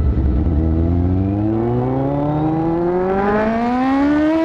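Aprilia Tuono V4's V4 engine accelerating hard under load, its pitch climbing steadily for about four seconds, then dropping sharply at an upshift near the end.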